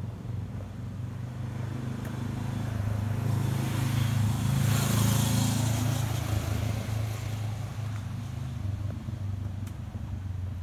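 A motor vehicle passing by: a low engine hum swells to its loudest about halfway through, with a rush of noise, then fades away.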